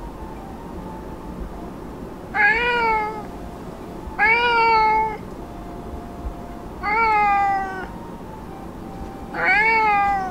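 Domestic cat meowing four times, each meow about a second long, rising then falling in pitch, two to three seconds apart.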